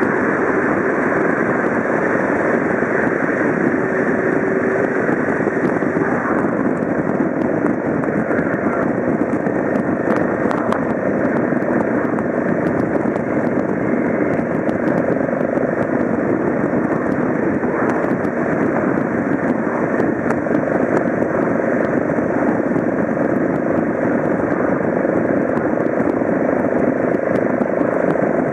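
Motorcycle running steadily at road speed, heard from on board: an even mix of engine and wind noise.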